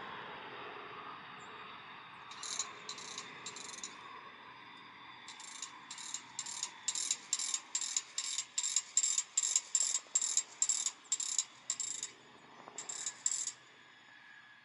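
Hawker 800 business jet's turbofan engines running at taxi power, fading over the first few seconds. Over it, and louder, comes a rapid, high-pitched, ratchet-like clicking buzz of about three pulses a second, in three runs that start and stop.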